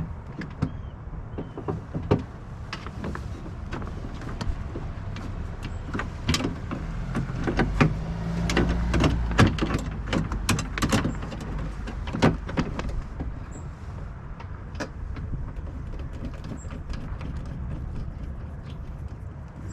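Irregular clicks and knocks of a replacement door lock actuator being handled, lined up and screwed into a pickup truck's door, over a low steady hum.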